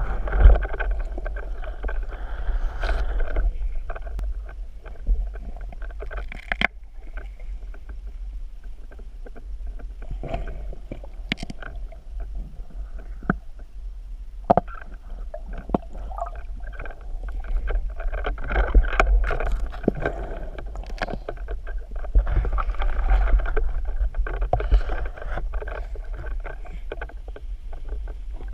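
Underwater camera audio in a river: muffled rushing and gurgling of water with a heavy low rumble that swells and fades, and scattered sharp clicks and knocks.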